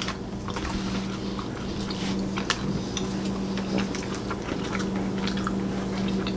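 Close-up chewing and biting of food, with scattered small wet clicks of the mouth, over a steady low hum.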